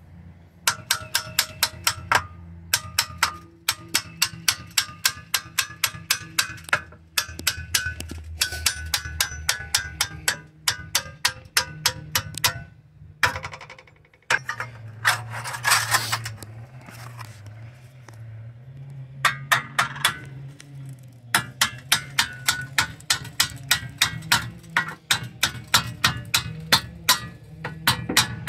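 Hammer tapping a metal wheel trim ring onto the rim of a steel wheel. There are runs of quick, ringing metallic taps, about five a second, with short pauses between runs, and a brief scraping noise about halfway through.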